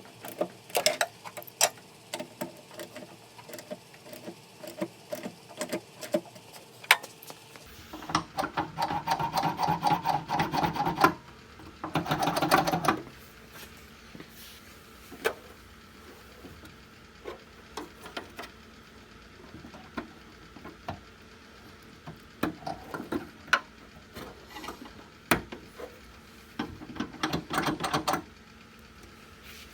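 Hand ratchet clicking in quick runs while tightening the nuts that hold a new door handle, with scattered single clicks and knocks of tools and parts between the runs. The longest runs come about eight and twelve seconds in, and another near the end.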